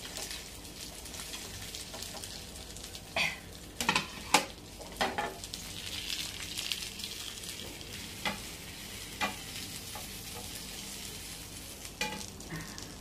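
Hot oil sizzling steadily in a frying pan, with a wooden spatula scraping and knocking against the pan several times as fried fish is lifted out.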